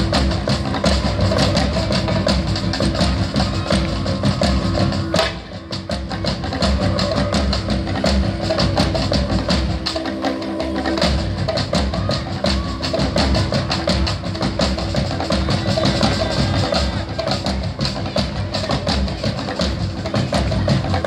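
Live percussion music played on a drum kit and other drums: a dense, fast beat over a steady held low note, briefly dropping in level about five seconds in.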